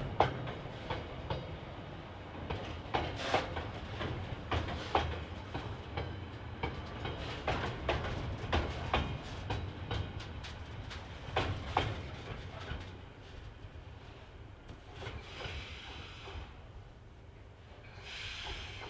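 Container wagons of a long freight train rolling past, with a low rumble and repeated sharp clicks of the wheels over rail joints. The sound thins and fades about two-thirds of the way through as the last wagons pass and the train draws away.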